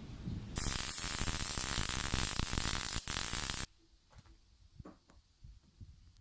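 A loud, steady hiss that starts about half a second in and cuts off abruptly some three seconds later, followed by a few faint knocks.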